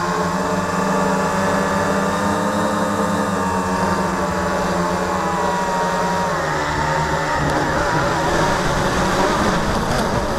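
Electric motors and propellers of an FPV multirotor drone in flight, a steady whine with several pitches that shifts and turns rougher about two-thirds of the way through as the throttle changes.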